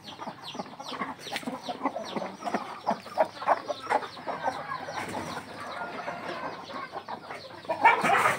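A flock of desi country chickens (natukodi) clucking and calling, many short calls overlapping several times a second, with a louder burst of calls near the end.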